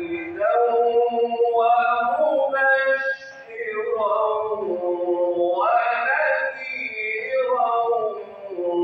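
A man reciting the Quran in a melodic, chanted style into a microphone: long held, ornamented phrases, with short breath pauses about three seconds in and again near the end.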